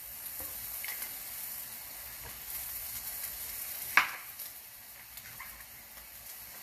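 Kitchen knife slicing raw mushrooms on a cutting board, with faint cutting clicks and one sharp knock of the blade on the board about four seconds in, over a steady hiss.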